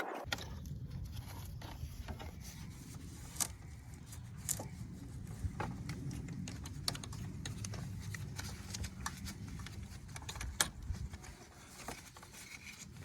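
Scattered metallic clicks and clinks of hand tools, such as a ratchet and socket, worked on car battery hardware, over a steady low rumble.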